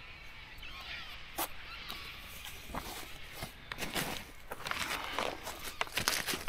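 Footsteps of a hiker walking on a dirt bush track: an irregular run of steps, more of them in the second half.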